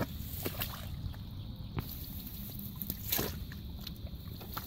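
Hands squelching and sloshing through wet mud and shallow water, with a few short wet splats scattered through, the largest about three seconds in.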